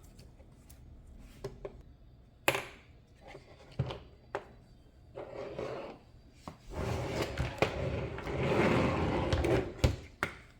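Plastic RC car parts and small tools handled during disassembly: scattered light knocks and clicks, with rubbing and rustling that grows busier in the second half.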